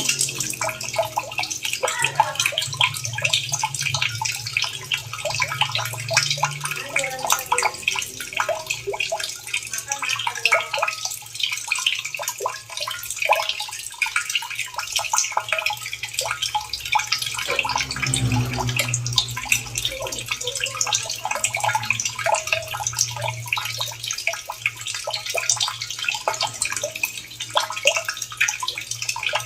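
Running water splashing and trickling steadily, a dense patter of small drops and splashes over a low, steady hum.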